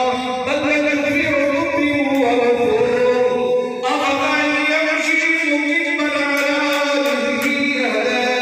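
Male voices chanting an Islamic devotional recitation unaccompanied, in long drawn-out melodic notes that change pitch every second or two.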